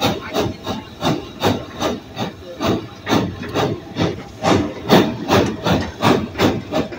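1937 Porter 0-4-0T steam tank locomotive working under steam, its exhaust chuffing from the stack in a steady rhythm of about two to three beats a second, with hiss between the beats.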